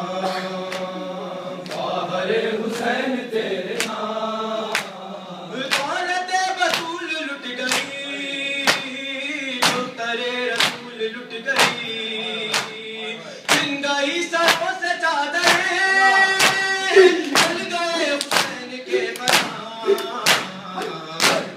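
A male reciter chants an Urdu noha (mourning lament) into a microphone, with men's voices joining in, over the sharp slaps of chest-beating (matam). The slaps come in a steady beat about one and a half times a second from about six seconds in.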